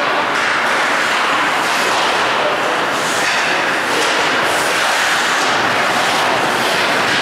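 Ice rink ambience during a hockey game: a steady rushing noise with the scrape of skate blades on the ice mixed in.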